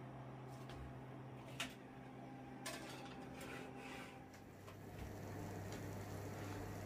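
Oven door being opened and a metal tart pan set onto the wire oven rack: a couple of sharp clicks and clatters about one and a half and two and a half seconds in, over a faint low hum.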